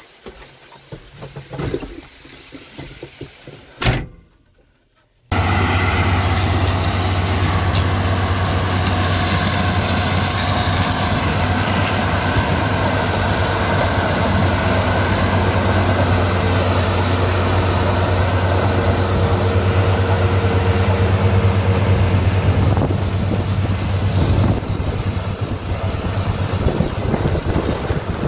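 A few light knocks and one loud knock about four seconds in, a moment of silence, then a New Holland tractor engine running loud and steady with a deep low hum.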